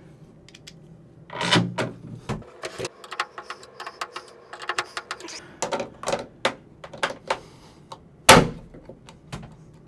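Clicks, taps and knocks of a chrome bathtub overflow cover plate and a screwdriver being handled against the tub while the plate is fitted, with one sharp, loud knock about eight seconds in.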